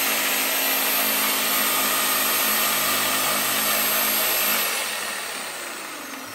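Electric jigsaw at its top speed setting, its blade cutting through plywood: a steady motor and sawing noise that fades away over the last two seconds.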